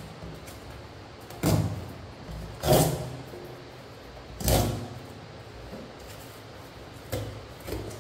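Cardboard tear-away strip being ripped along a Samsung Galaxy Watch 5 box in about five short tearing pulls, a second or so apart, as the seal is opened.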